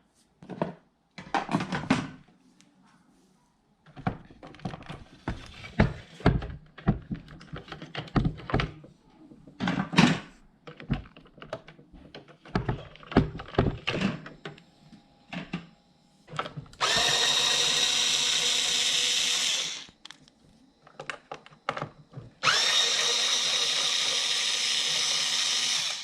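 Plastic clicks and knocks of a machine being handled, then a small electric motor running at high speed twice, each time for about three seconds, a steady whirring noise with a fixed whine in it.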